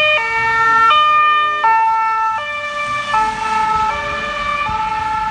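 Two-tone siren of a MAN ambulance van on an emergency run, alternating between a high and a low note about every three-quarters of a second, both notes dropping slightly in pitch as it passes.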